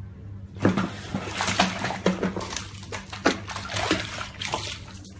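Bathtub water splashing and sloshing: a sudden splash about half a second in, then repeated splashes for several seconds, over a low steady hum.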